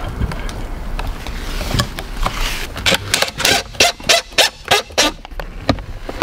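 A DeWalt cordless drill-driver is driving screws to fix a hose clamp to a wooden post. From about halfway in it gives an uneven run of short sharp clicks and knocks, roughly four a second.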